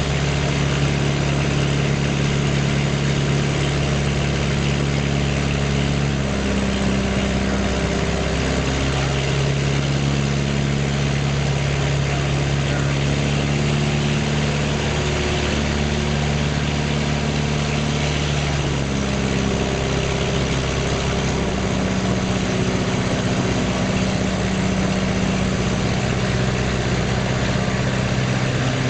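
Light aircraft's piston engine and propeller running steadily at power, heard from inside the cockpit, with a constant rush of air. The engine's pitch steps slightly up or down a few times as the throttle is adjusted.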